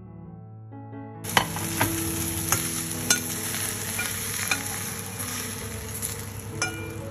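Prawns sizzling in hot oil in a frying pan, with a spatula clinking and scraping against the pan several times as they are turned and lifted out, fried golden and about seven-tenths cooked. The sizzle starts about a second in, after soft piano music.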